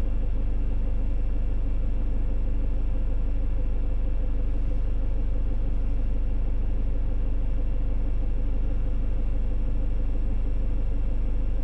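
Peugeot Boxer camper van's engine idling while parked, a steady low rumble heard from inside the cab.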